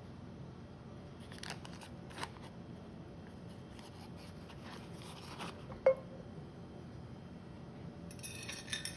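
Kitchen utensils and cookware being handled: scattered light clicks and taps, with one sharp clink that rings briefly about six seconds in.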